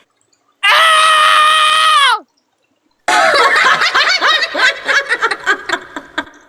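A voice holding one long high scream that drops in pitch as it cuts off, then, after a short pause, a rapid chattering run of high laughter.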